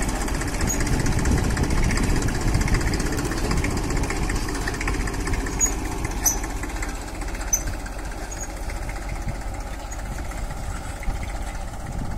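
Massey Ferguson 1035 tractor's diesel engine running steadily as it pulls a tine cultivator through the soil between maize rows, a little quieter from about halfway through.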